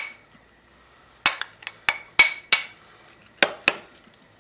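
Metal spoon clinking against a small glass bowl as grated parsnip and apple are scraped off a board into sour cream: one sharp clink at the start, a quick run of about six clinks a second or so later, then two more.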